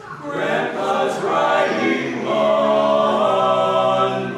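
Barbershop quartet singing a cappella in close harmony: the voices move and slide for about two seconds, then settle into a long held chord.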